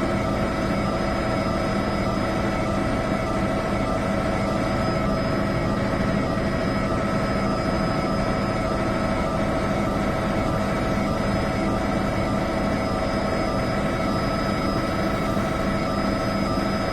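A steady machine or engine drone, with several constant tones over a noise bed and an even level throughout.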